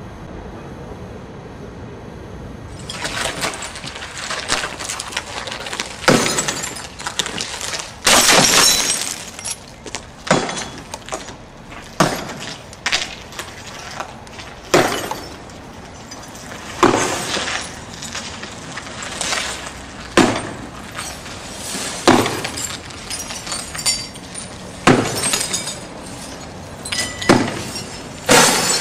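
Car windshield glass being smashed over and over: sharp breaking-glass hits roughly every two seconds, starting about three seconds in, with smaller clinks of glass between.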